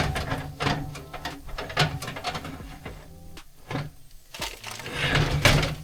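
Irregular clattering knocks, as from a baking tray and utensils being handled, loudest at the start and again near the end, over the steady hum of a convection oven's fan.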